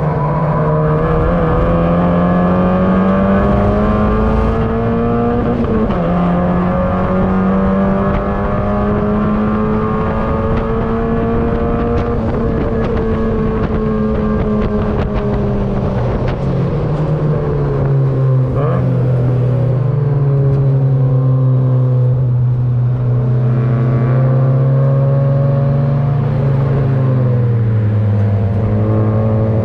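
In-car sound of a Mazda MX-5 race car's four-cylinder engine running hard, its pitch climbing and dropping through several gear changes. In the second half it settles to a lower, steadier pitch, under a constant rush of wind and road noise.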